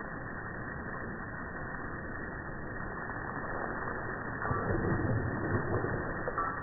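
Garden hose spray hitting the lawn, with a dog biting and splashing at the stream. The sound turns louder and heavier about four and a half seconds in, when the dog's head is in the water.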